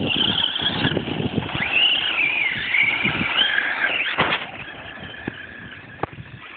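Radio-controlled model cars driving on gravel, the motor whining higher and lower with the throttle over a crunchy tyre rumble. There is a sharp knock about four seconds in, and the sound falls quieter after that.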